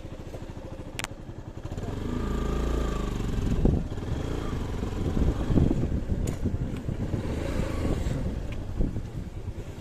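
A motor vehicle engine running, growing louder about two seconds in, with two sharp clicks.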